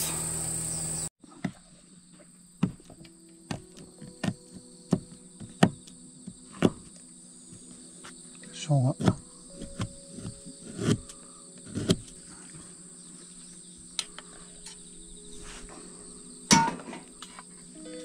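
Insects trilling steadily at a high pitch, with scattered sharp clinks and knocks of camp cooking gear. Faint sustained music notes sit underneath.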